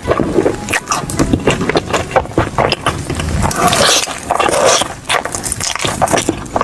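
Close-up eating sounds: a person chewing and slurping fried rice vermicelli, with many short wet clicks and smacks.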